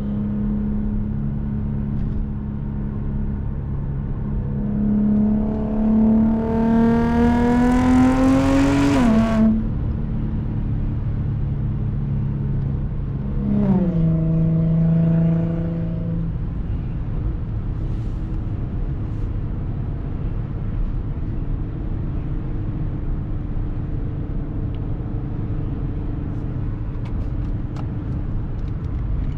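Supercharged Audi V6 engine running under way: it pulls up in pitch for a few seconds and breaks off about nine seconds in, as at a gear change. Near fourteen seconds the pitch drops briefly, then the engine settles into a steady cruise.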